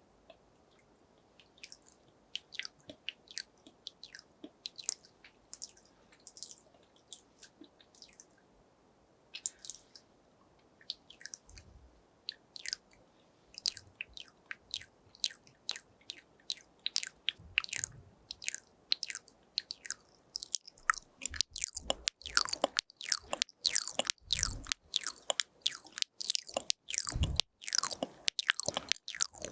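Close-up ASMR mouth sounds: wet tongue clicks and mouth smacks. They are sparse and soft at first, then turn quick and dense, and louder, about two-thirds of the way in.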